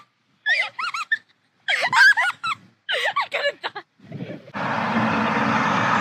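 Children squealing and laughing in short high-pitched bursts. About four and a half seconds in, they give way to a steady rushing noise.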